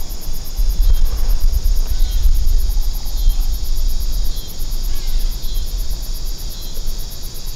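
Wind buffeting the microphone as an uneven low rumble, over a steady high chorus of crickets and other insects.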